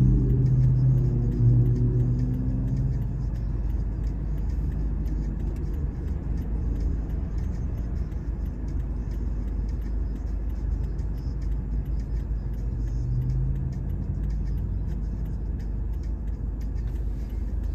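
Low, steady road-traffic rumble heard from inside a car idling in traffic, with a deeper engine hum from a nearby vehicle for the first few seconds and again briefly later.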